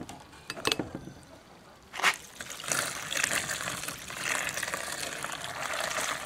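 A couple of light knocks, then about two seconds in water starts pouring steadily over washed lead airgun pellets in a plastic sieve, splashing through into a tub of soapy water below. This is the rinse that clears the soap bubbles and lead dust from the pellets.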